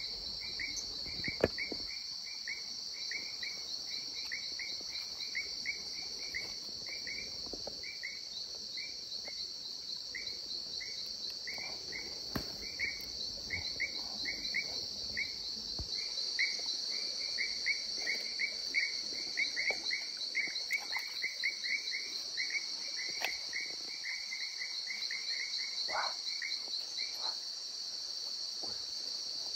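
Forest insects such as crickets trilling steadily at a high pitch. Over the trill, another caller repeats short chirps two to three times a second and stops near the end. A few light knocks come through, the sharpest about a second in.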